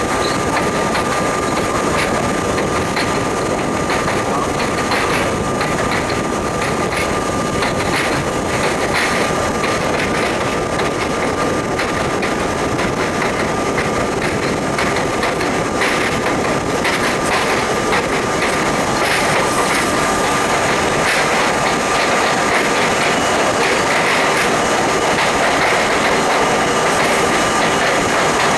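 R32 subway train running at speed, heard from inside its front car: a steady rumble with a constant high hum, and wheels clicking over rail joints at irregular intervals.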